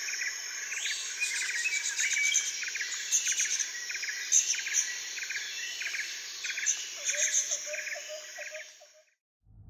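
Insects drone steadily and birds chirp over it, with a chirp repeating about twice a second. A lower, rapid call joins near the end, then the sound fades out.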